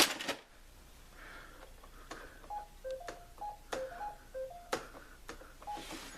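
Brother inkjet printer mechanism running a cycle: short steady tones that step between a few pitches, with a few sharp clicks among them.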